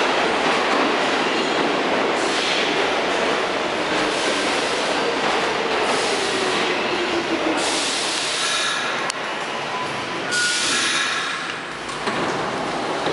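R46 subway train pulling into an underground station and slowing to a stop: a steady noise of steel wheels on rail, with a motor whine that falls in pitch as the train slows. Brief squeals come in over the last few seconds as it brakes.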